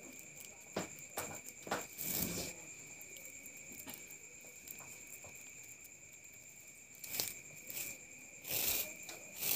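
Hands working the twisted twine strands of a hammock, pulling and knotting them: faint rustling with scattered light crinkles and scrapes, and longer rustles about two seconds in and near the end.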